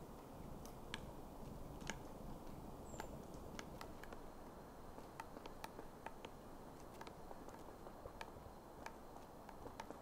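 Eurasian three-toed woodpecker pecking at spruce bark: irregular sharp taps, one to three a second, over a low steady background rumble. A single short, high thin note about three seconds in.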